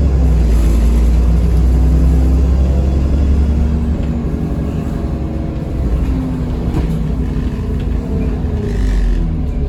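Dennis Trident 2 double-decker bus's diesel engine running under way, heard from on board. The deep rumble eases about three and a half seconds in and the engine note carries on lighter, with pitch glides later on.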